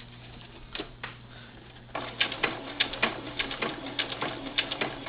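Singer Futura sewing machine sewing a straight stitch: a few isolated clicks, then from about two seconds in the needle clicks rapidly and evenly over the machine's low hum.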